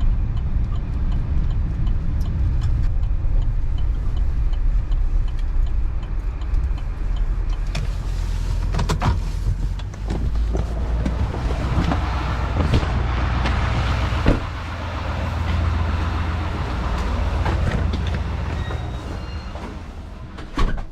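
Motor vehicle running, heard as a steady low engine and road rumble, with a few short knocks and rattles around the middle.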